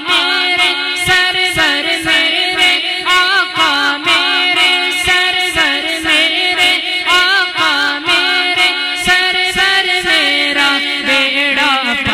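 A man singing an Urdu naat into a microphone in a drawn-out, ornamented style, with a held low drone under the voice and a steady clicking beat.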